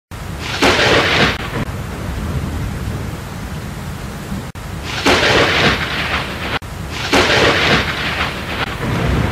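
A steady low rumble like a storm, with three loud crashes like thunder, each lasting about a second: one just after the start, one about five seconds in and one about seven seconds in.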